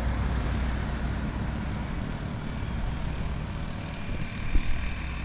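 Heavy truck's diesel engine pulling up a slope, a steady low drone; the truck is running unladen, so it climbs smoothly.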